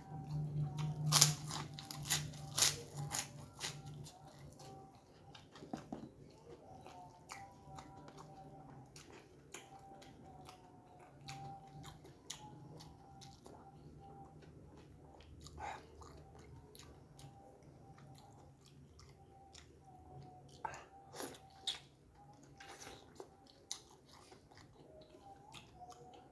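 Crisp fried kerupuk cracker crunched between the teeth, loudest in the first few seconds, then steady mouth chewing with scattered softer crunches and a few louder bites later on.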